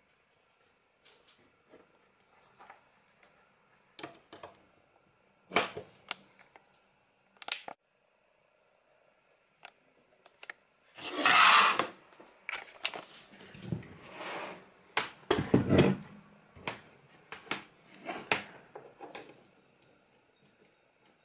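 Handling noise from a mains plug, its cable and a rocker-switch box: scattered clicks and knocks, with a louder rushing scrape about halfway through and more knocks and rustling after it.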